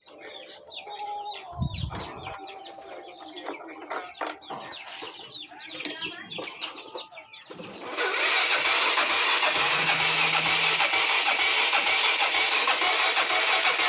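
Chickens clucking for the first eight seconds. Then a Yamaha Mio Sporty scooter's starter cranks steadily and loudly for about six seconds without the engine catching: the scooter is hard to start.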